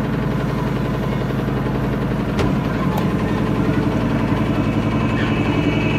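Small motor boat's engine running steadily with a fast, even pulse, getting a little louder about halfway through, with a couple of faint knocks.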